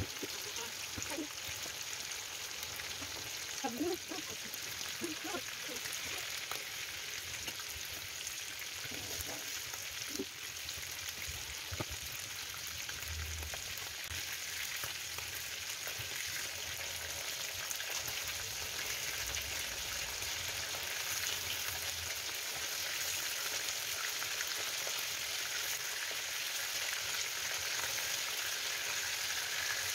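Pieces of crocker fish (hake) frying in hot oil: a steady sizzling hiss that grows a little louder toward the end.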